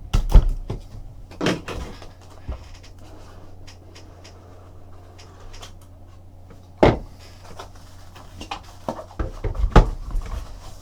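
A cardboard trading-card box being opened and handled on a table, with scattered knocks, clicks and rustles. The loudest knocks come about half a second in and at about 1.5, 7 and 10 seconds, with a cluster of smaller ones near the end.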